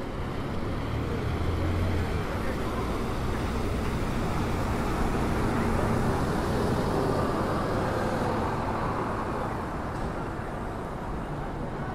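City street traffic: a steady wash of road noise with a low engine hum, strongest about one to two seconds in, and passers-by talking.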